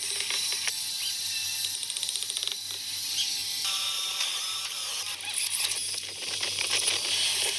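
Wooden knocks from a mallet on a pine leg joint, then a handheld power drill running from about three and a half seconds in as a bit bores into a pine table leg.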